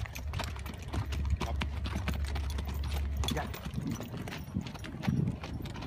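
Hoofbeats of several ridden horses on sandy dirt ground, an uneven overlapping clip-clop of more than one horse, with a low rumble underneath.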